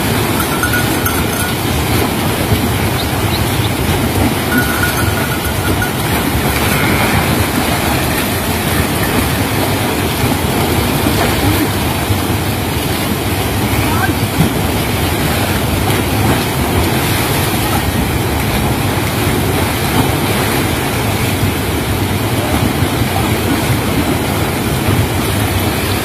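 Loud, steady rush of river water pouring over a weir and waterfall.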